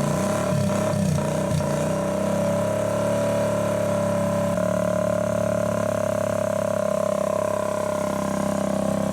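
Honda CT110 postie bike's single-cylinder four-stroke engine just started: it revs up and down for the first couple of seconds, then settles into a steady idle.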